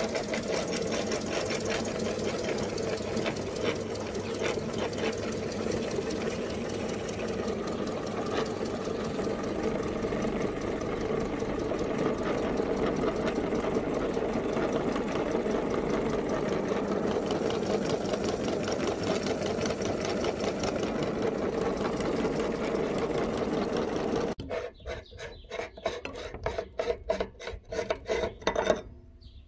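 A meat grinder running steadily as it grinds frozen ice cream bars through its cutting plate, a dense mechanical whirr with a fast fine rhythm. It stops about 24 seconds in, giving way to scattered metal clanks and knocks as the grinder's parts are handled.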